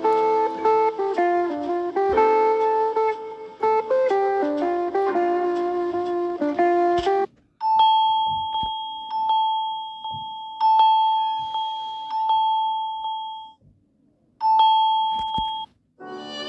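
Phone ringtones played one after another. First comes a quick melodic tune of plucked-sounding notes, then a single high ringing tone pulsing over and over, which stops, comes back briefly and gives way to another tune at the very end.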